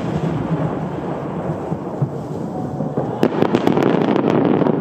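Starmine fireworks bursting in a dense, continuous volley, with a rapid run of sharp crackles from about three seconds in, as the many small bursts of a senrin (thousand-ring) shell go off.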